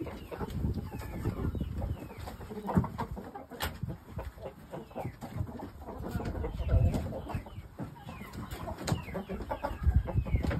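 Shamo game chickens clucking and calling with many short, falling calls, with a few sharp knocks and low thuds along the way.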